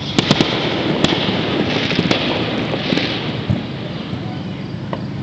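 Fireworks going off: a quick cluster of sharp bangs near the start and another about a second in, over a steady noisy background.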